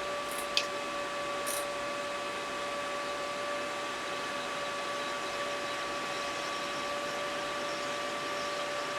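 Steady airflow hiss of a hot-air rework station heating solder joints, with a constant two-note whine, and a few faint light clicks in the first second and a half.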